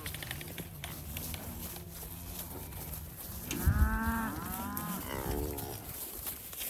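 Murray Grey cattle mooing: one loud, drawn-out moo about three and a half seconds in, then a shorter, wavering moo about a second later.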